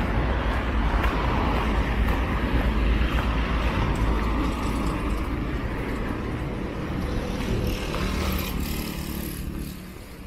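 Road traffic going by on a city avenue: cars passing with a low rumble and tyre noise. About three-quarters of the way through, a small motorcycle's engine comes in at a steady pitch as it rides past, then the noise drops off near the end.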